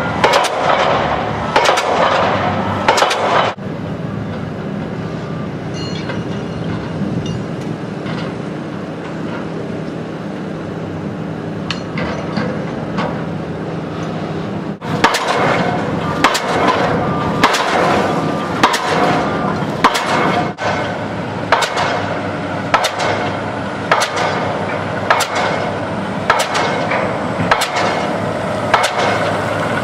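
Pile-driving hammer striking a pile in a steady rhythm, about one blow every three-quarters of a second, over a steady machine drone. The blows stop a few seconds in, leaving only the drone, and start again about halfway through.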